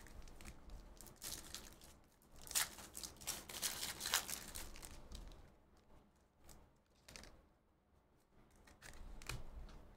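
A Panini Prizm basketball card pack wrapper being torn open and crinkled: a run of crackling, tearing noise over the first half, loudest about two and a half and four seconds in, then a few light handling clicks.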